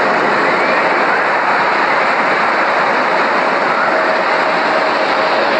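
An audio track presented as the sound of the Earth from space: a steady, loud rushing hiss with faint short rising chirps every second or so and a faint steady hum underneath.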